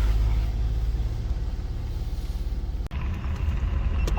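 Land Rover Discovery 4 engine running with a steady low drone, broken off for an instant about three seconds in.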